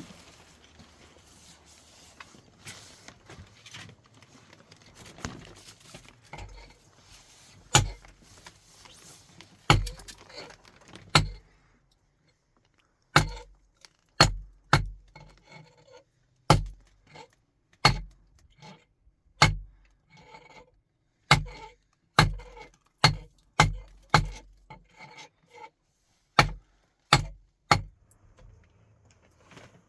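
A hand-held stone used as a hammer, knocking repeatedly: about twenty sharp strikes at an uneven pace of roughly one a second, each with a short ring. Before the strikes, faint rustling.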